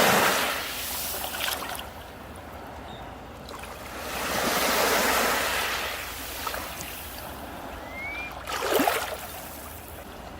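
Sea waves breaking on a beach and washing back: one breaks right at the start, a broader surge swells and fades a few seconds in, and a sharper break comes near the end. A single brief rising whistle sounds just before that last break.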